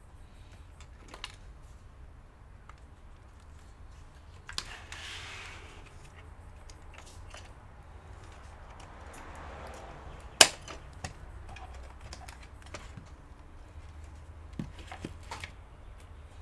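Scattered clicks and taps of laptop parts being handled on a workbench, with one sharp, loud click about ten seconds in and brief rustling, over a low steady hum.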